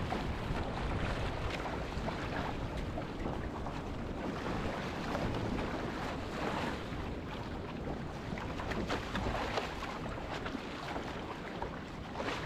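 Wind rumbling on the microphone over rough seawater splashing and rushing around a boat's hull, with scattered short splashes.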